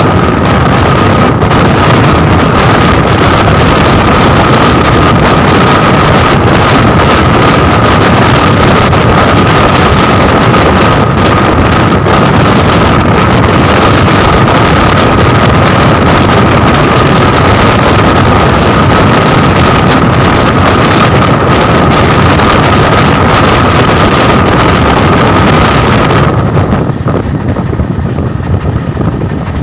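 Train running at speed: a loud, steady rush of wind and rolling noise with a steady high whine over it. About 26 s in, the whine and the hiss drop away and it becomes quieter.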